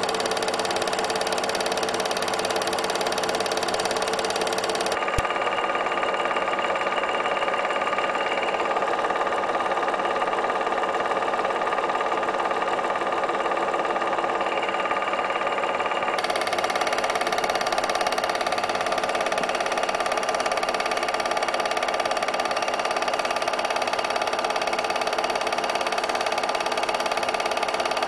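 Steady, even running of a small motor-driven machine, a constant mechanical hum. Its higher tones drop out from about five seconds in until about sixteen seconds in.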